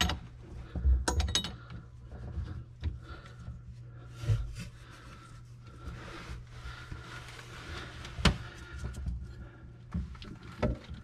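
Scattered metal clinks and knocks of a wrench working the dishwasher's hot water supply line fitting under the sink, with a steady low hum underneath.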